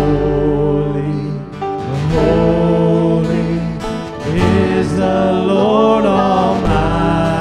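Contemporary worship song: voices singing a slow melody over guitar accompaniment.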